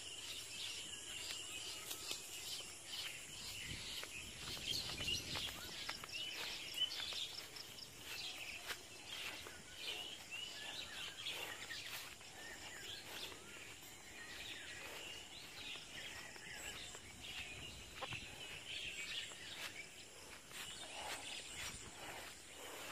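Small birds chirping and calling again and again over a steady outdoor background hiss.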